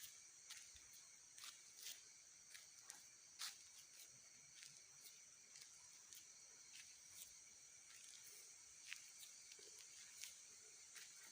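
Near silence: faint night ambience with a steady high-pitched drone of insects and scattered faint clicks and ticks.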